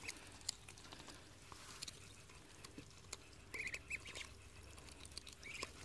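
Young Muscovy ducks peeping in short runs of quick, high-pitched notes, one brief run at the start, a longer one a little past halfway and another near the end, with faint scattered clicks.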